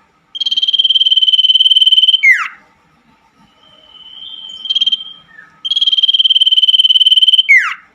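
Common iora giving two long, rapidly trilled high calls of about two seconds each, each ending in a sharp downward note, with a softer steady whistle between them.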